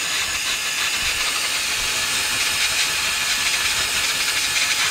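Nitecore Blower Baby 2 electric air duster running in its optical mode: its fan motor drives a steady, continuous rush of air at a camera lens held close to the nozzle.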